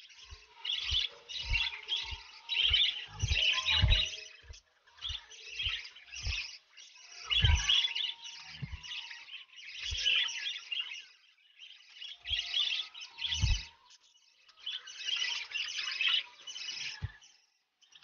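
Lovebirds chattering in quick scratchy runs of one to three seconds with short pauses between, over soft low knocks.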